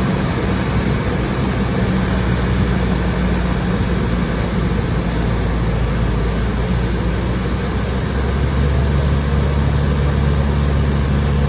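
Cessna single-engine piston engine and propeller droning steadily, with a note that shifts lower about eight and a half seconds in.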